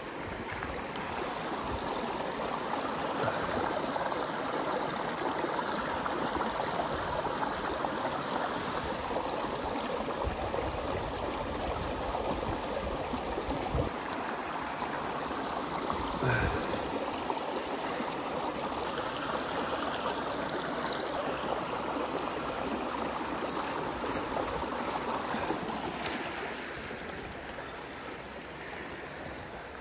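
Shallow creek running over rocks and stepping stones: a steady rushing trickle that grows softer near the end. A single knock about sixteen seconds in.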